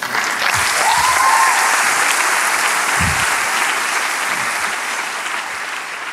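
Audience applauding after a talk, slowly fading toward the end, with a short rising call about a second in.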